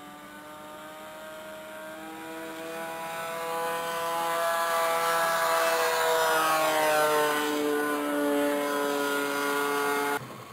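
RC model airplane's motor and propeller droning through a low pass, growing louder as it approaches and dropping in pitch as it goes by. The sound cuts off suddenly near the end.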